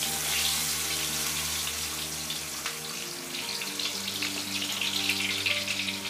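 A batter-coated chicken satay skewer deep-frying in hot oil, a dense crackling sizzle of bubbling oil around the freshly dropped skewer.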